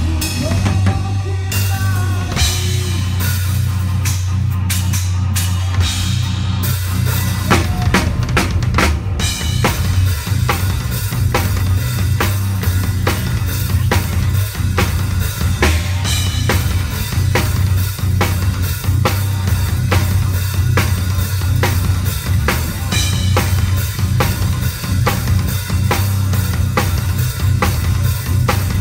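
A PDP drum kit with two bass drums played live, with snare, cymbals and kick drums over a band's low bass. The opening few seconds are sparser, then a steady, dense beat with fast kicks starts about nine seconds in.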